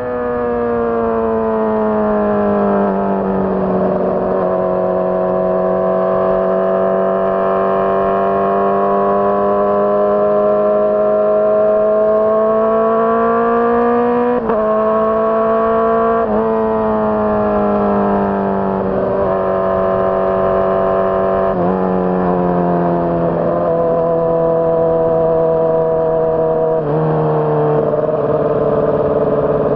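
Honda CBR600RR's inline-four engine running under way, its pitch falling, then climbing slowly. Several sudden pitch steps follow, mostly downward, as it shifts up through the gears.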